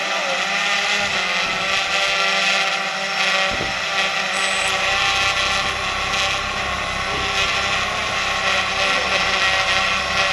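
Brushless motors and propellers of a Tarot 650 Sport quadcopter spinning at armed idle on the ground, a steady whine with an even pitch.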